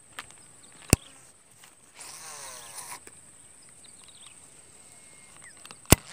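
Fishing rod and baitcasting reel handled close to the microphone: two sharp clicks about five seconds apart, with about a second of whirring between them.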